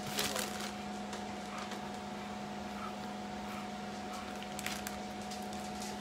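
Faint rustling and crinkling of plastic as hands press ground meat into a zipper freezer bag on a plastic-covered table, with a few soft clicks, over a steady low electrical hum.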